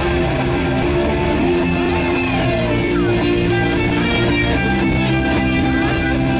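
Nighttime water-show soundtrack music, played in reverse: a steady, dense wash of sustained notes with sweeping glides in pitch.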